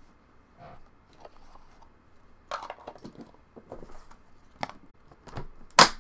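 Handling knocks and light rustles as a cased trading card is set into the foam of an aluminium carry case, then the case's lid is shut with one sharp clack near the end, the loudest sound.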